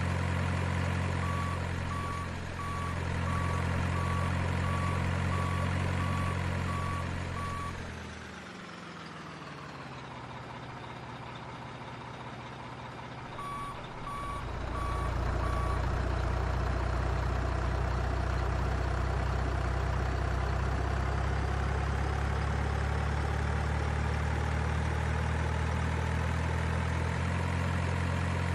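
An RC model truck's electronic sound unit plays a heavy diesel engine running, with steady reversing beeps at about one and a half a second. About eight seconds in, the engine sound winds down and goes quieter. It comes back about fourteen seconds in over a few more beeps and then runs steadily.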